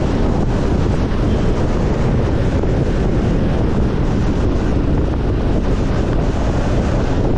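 Steady wind noise rushing over the microphone of a motorcycle riding at speed.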